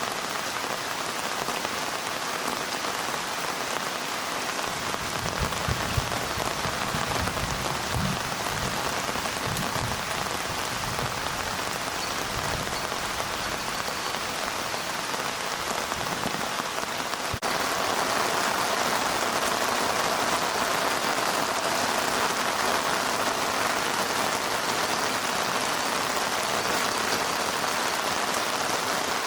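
Heavy rain falling steadily, with a few soft low thumps in the first half. A little past halfway the sound changes abruptly and the rain is slightly louder from there on.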